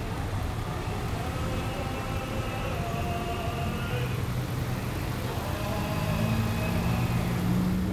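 A car running on the street, a steady low engine rumble that grows louder and rises slightly in pitch over the last two seconds as it draws near.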